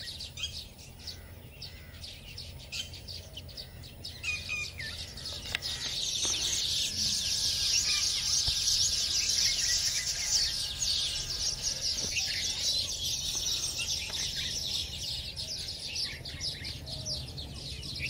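A colony of baya weavers chattering, many birds chirping rapidly at once. The chorus thickens and grows louder about six seconds in, over a steady low hum.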